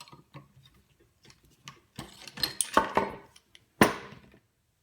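Metal clinks and knocks from an Atlas 73 drill press head as the drill bit and chuck are worked out of the spindle, with a cluster of clicks about two seconds in and one sharp, ringing knock near the end.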